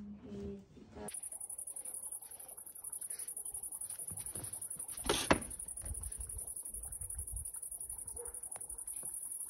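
Cicadas singing: a steady, high-pitched buzz that starts suddenly about a second in. A single knock sounds about halfway through.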